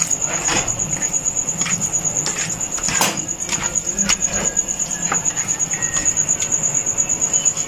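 Wet squelching and small clicks of a hand working chicken pieces into a thick maida and besan batter on a steel platter. Under it runs a steady, high-pitched pulsing chirp.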